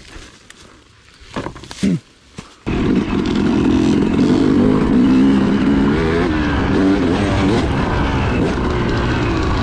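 Yamaha YZ250 two-stroke dirt bike engine running under way at a steady, slightly wavering pitch, cutting in suddenly about two and a half seconds in. Before it, a few sharp knocks over quiet handling noise.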